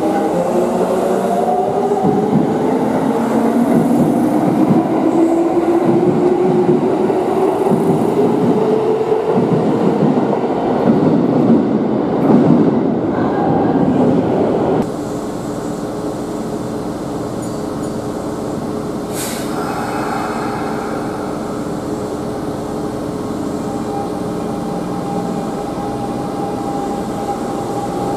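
Kintetsu electric commuter train pulling out of an underground station: its traction motors whine, rising in pitch as it gathers speed, over loud wheel rumble and clatter that echoes off the platform. After an abrupt cut, a standing Kintetsu 1220 series train hums with several steady tones, with one short high click partway through.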